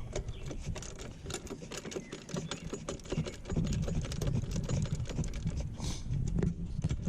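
Dense, irregular light clicking and tapping from hands and tools working the car's interior trim panels and fasteners, over an uneven low rumble.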